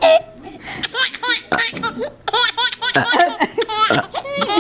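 Someone laughing hard in repeated bursts of laughter, set off by burps.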